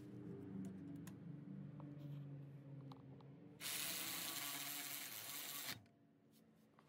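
A steady hiss, the loudest sound here, starts about three and a half seconds in, lasts about two seconds and cuts off abruptly, after a faint low hum.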